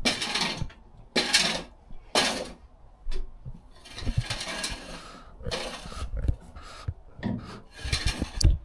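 A small muck rake scraping wood-shavings bedding across a rubber-matted stable floor, in short irregular strokes, with a few dull knocks.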